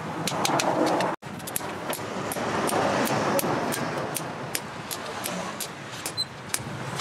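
Hammer blows ringing on red-hot spring steel on an anvil, several sharp metal-on-metal strikes a second, as the blade is forged and cut with a hot chisel. The strikes break off for an instant about a second in.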